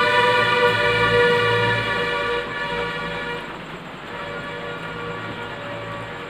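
Train horn sounding one long steady blast at a single pitch, loudest for the first three seconds or so, then fading but still held to the end.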